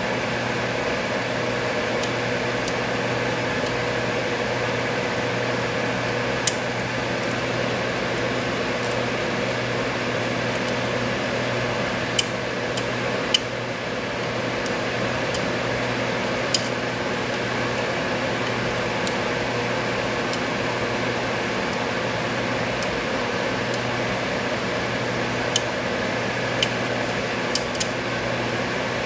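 Steady machine hum like a fan or air conditioner, with a few scattered light clicks of lock picks working the pins of a Medeco M3 high-security cylinder.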